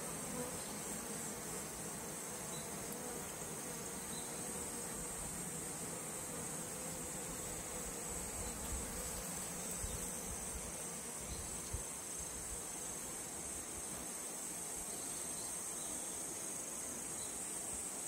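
Steady high-pitched chirring of insects, with a low hum of honeybees flying at a hive entrance beneath it.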